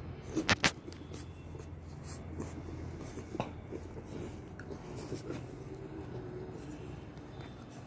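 American bully puppy biting and tugging at a hard plastic chew toy: a quick run of sharp clacks about half a second in, another single clack a few seconds later, and light scratching and scuffling between.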